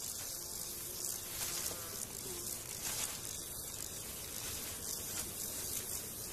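Meadow insects buzzing and chirping in a steady high-pitched hiss, with a low buzz passing briefly twice.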